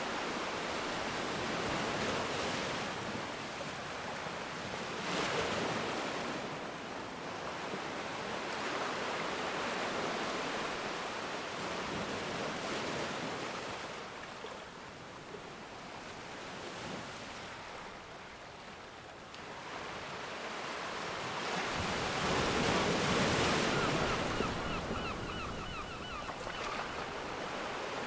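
Ocean waves breaking and washing in a steady wash of surf, swelling twice, once about five seconds in and more strongly near the end.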